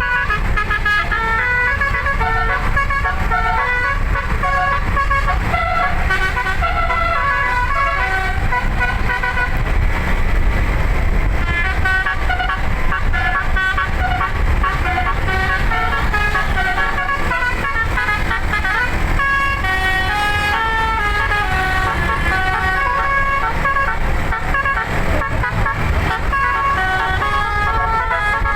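Telolet basuri, an 11-note musical air horn, playing a continuous melody of quick stepping horn notes over a steady low rumble.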